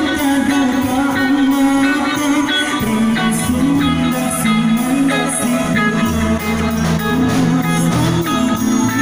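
Live band music: electric guitars and drums with a man singing into a microphone. A low bass line comes in about three seconds in.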